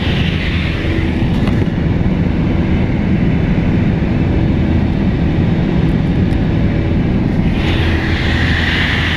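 Light aircraft's engine and propeller droning steadily, heard inside the cabin in flight. A higher hiss joins about eight seconds in.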